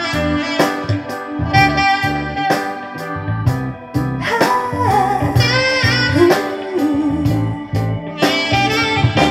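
Recorded music from a CD played on a Denon DCD-595 CD player and heard through loudspeakers: an instrumental passage of a soul-pop song with a steady beat. The heavily scratched disc plays straight through without skipping.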